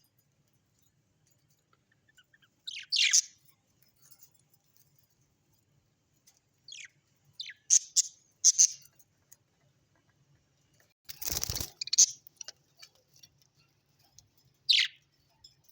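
Small parrots giving short, sharp chirps that drop in pitch, spaced out with pauses: one about three seconds in, a quick cluster in the middle, a longer harsh squawk about eleven seconds in, and a last chirp near the end.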